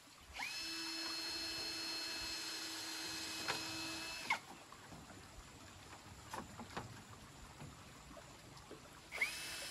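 A small motor spinning up with a rising whine, running steadily for about four seconds and stopping, then starting up again near the end.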